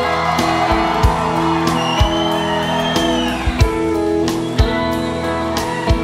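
Live band playing an instrumental passage: an electric guitar melody with some sliding notes over sustained chords and bass, with a slow drumbeat of about one kick a second.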